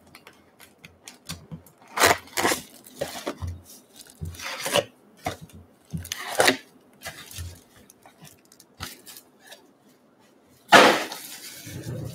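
Wrapped trading card packs being pulled out of a cardboard hobby box and set down in stacks on a wooden table: a string of short crinkles and taps, with a louder knock and rustle near the end.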